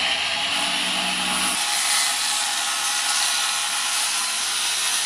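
Corded circular saw cutting lengthwise along a large PVC pipe, the blade running steadily through the plastic.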